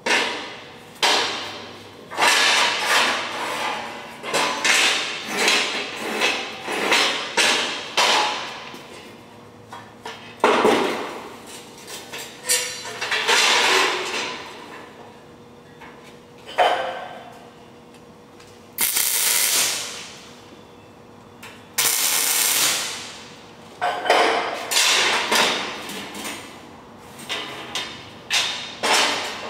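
Steel vent plates and parts clanking and knocking against a steel welding table as they are handled, each knock ringing and dying away, at irregular intervals. About two-thirds of the way through come two hissing bursts of a second or so each.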